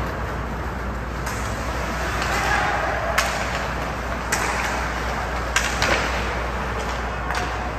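Ice hockey play in a rink: about five sharp clacks of sticks and puck over the steady background noise of the arena.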